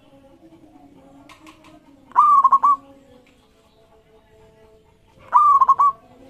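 Local zebra dove (perkutut) singing its call twice, each a short clear note that breaks into a quick stutter of notes, about three seconds apart.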